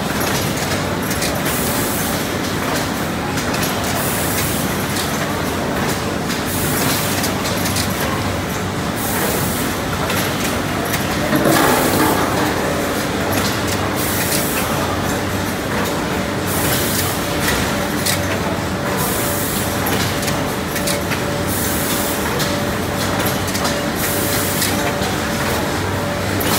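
Ice cream extrusion line with a pneumatic pick-and-place robot running steadily, with a short hiss of compressed air about every two seconds as the grippers cycle. There is a brief louder swell about halfway.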